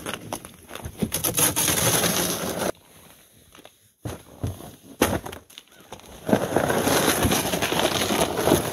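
Plastic Jet Sled and gear being handled and set down, with rustling and scraping, then a few sharp knocks. Over the last couple of seconds comes a steady scraping as the loaded sled is dragged across icy, snow-crusted pavement.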